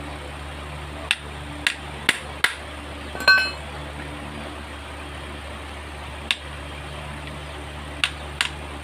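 A small hammer tapping on metal while a pedal bracket assembly is taken apart: seven sharp taps in small groups, with one louder ringing metallic clink about three seconds in. A steady low hum runs underneath.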